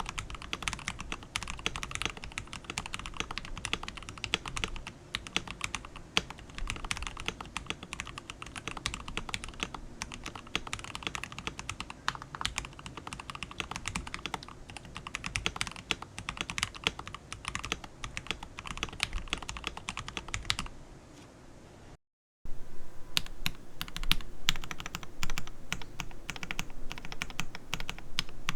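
Typing on a KBD67 Lite gasket-mount keyboard fitted with lubed Gateron Yellow linear switches and thick PBT keycaps: a fast, steady run of keystrokes. About three quarters of the way through it drops out for a moment, then resumes louder.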